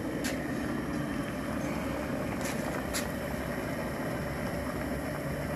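Propane outdoor burner running steadily under an aluminium stockpot of boiling shrimp, corn and potatoes. A few light clicks come as the pot lid is lifted off.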